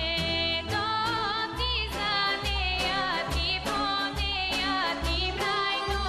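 A young woman's voice singing a Bulgarian folk song, the melody ornamented and wavering, over an instrumental accompaniment with bass notes and a steady beat of about two strokes a second.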